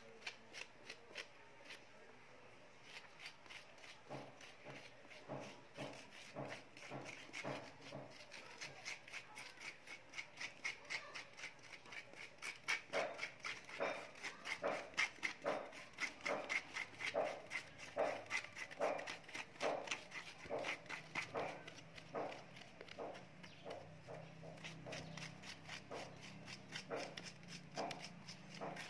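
Metal spoon scraping soft cooked banana flesh out of the peel into a stainless steel bowl, in quick repeated strokes about two a second that grow louder partway through.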